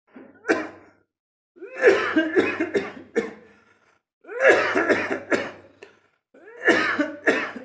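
A person coughing in hard fits: one single cough, then three bouts of several rapid coughs each, with short pauses between bouts.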